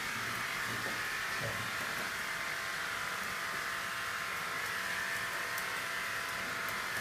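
Steady hum of a small electric motor, like a grooming dryer or clipper, running without change, with a few faint scissor snips as the paw hair is trimmed.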